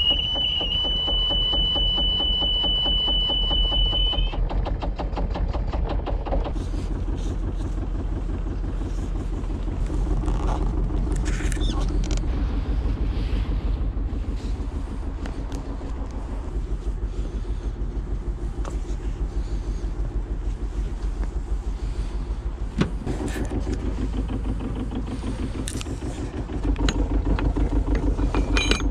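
Sailboat's engine running with an even low pulse. A high steady beep sounds over it for the first four seconds or so and then stops; there is a single knock partway through, and the engine gets louder near the end.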